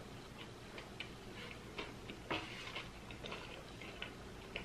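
Faint, irregular small clicks and smacks of a person chewing a mouthful of taco close to the microphone, several a second.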